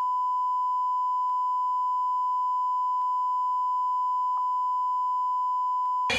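A single steady electronic beep at one unchanging high pitch, lasting about six seconds. It stands in place of all other sound and cuts off abruptly just before the end.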